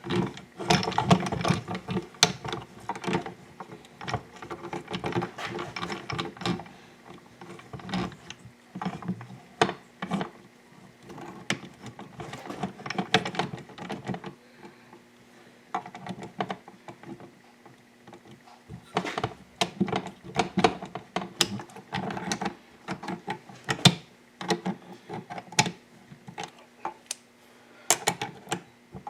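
Irregular metallic clicking and clunking of a Yamaha WR426F's gearbox internals in the open crankcase half: the transmission shafts and shift drum being turned and shifted by hand to check that everything moves. A faint steady hum comes in about halfway through.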